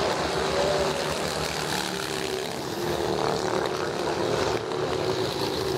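Vintage racing motorcycles running around an oval track: a steady engine drone whose pitch drifts slowly up and down as the bikes circulate.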